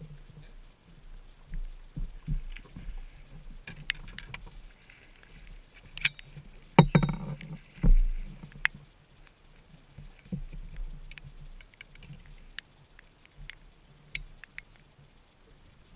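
Knocks, thumps and clicks of people moving on a bass boat's deck and handling a landing net as a bass is netted, with the loudest thumps in the middle, over a low steady hum.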